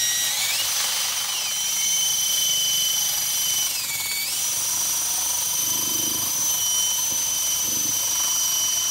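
Drill spinning a wire wheel against a rusty steel plate: a steady motor whine over the scratchy hiss of the wire bristles. The whine dips briefly in pitch about four seconds in, then picks back up.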